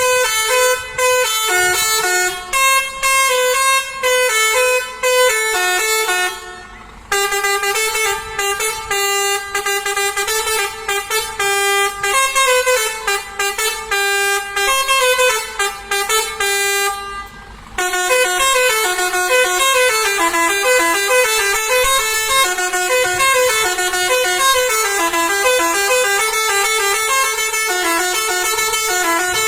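Lorry telolet horns: multi-note air horns playing quick tooting tunes, the pitch stepping from note to note. Three stretches of horn tunes, split by short breaks about 7 and 18 seconds in.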